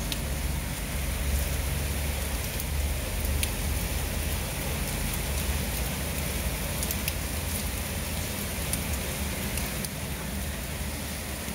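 Heavy rain pouring down in a steady hiss, with scattered sharp ticks of single drops.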